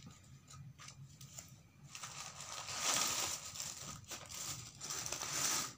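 Brown paper food wrapping being handled and crumpled: faint rustles at first, then a dense crinkling from about two seconds in that stops abruptly near the end.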